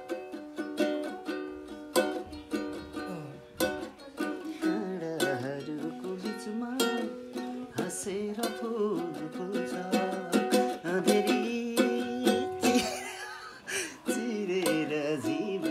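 Ukulele being strummed and picked, playing a tune, with a voice singing along through the middle of it.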